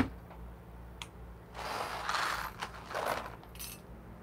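A sharp click, then a smaller click and two short scraping, rattling bursts as small coffee gear is handled.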